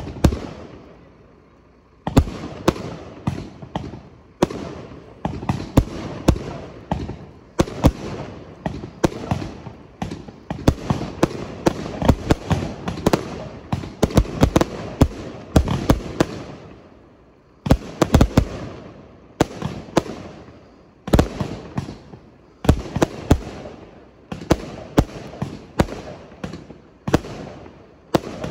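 Fireworks display: rapid volleys of sharp bangs as aerial effects burst overhead, with short lulls about two seconds in and again around seventeen seconds.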